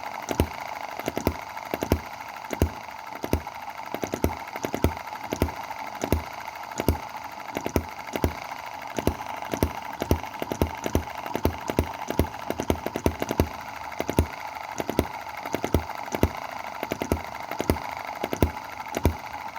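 Small Chinese EM2 hit-and-miss model gasoline engine running, with sharp regular beats about two to three a second over a steady high hum. It is running with the exhaust valve timing moved one cog tooth: fewer misfires, though the owner thinks it has possibly lost some power.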